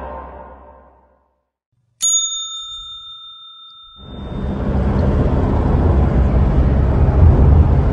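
Intro music fades out, then a single bright bell-like 'ding' sound effect strikes about two seconds in and rings out over a second or two. From about four seconds the steady low rumble of road and engine noise inside a moving car takes over.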